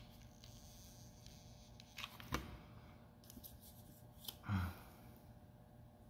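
Quiet room tone with a few faint clicks and taps from handling a hot glue gun and a CD while a cardboard spacer is glued on and pressed down. There is one short low sound about four and a half seconds in.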